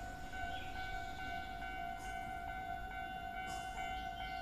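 Railway warning signal ringing: a steady electronic tone with a faint beat about twice a second.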